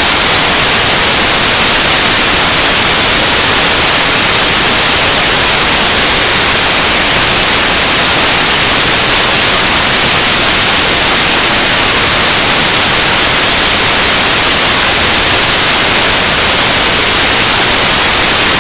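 Noise music: a loud, unchanging wall of static hiss, dense and heaviest in the high end, with no rhythm, tones or breaks.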